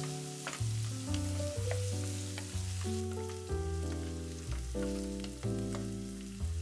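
Chopped onions sizzling in hot oil in a non-stick frying pan, stirred with a wooden spatula that scrapes and ticks against the pan. Background music with a melody and bass line plays over it and is the loudest sound.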